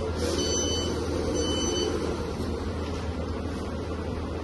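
1/14 scale 6x6 RC dump truck reversing, sounding two short high beeps about a second apart over a steady low drone of its drive; the beeps stop about two seconds in.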